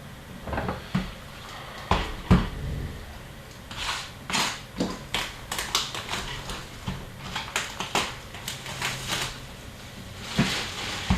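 A sealed box of trading cards being handled and unwrapped: a couple of knocks, then a run of crinkling, crackling and rustling of the wrapper and packaging.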